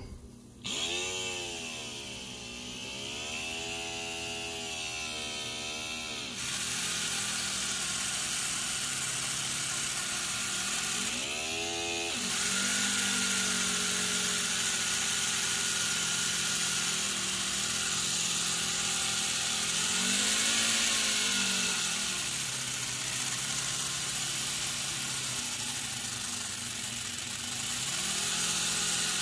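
Gasparin CO2 model airplane engine running on a tether car chassis over a steady hiss. Its speed swings up and down several times as the throttle is adjusted, with a sharp rise about twelve seconds in.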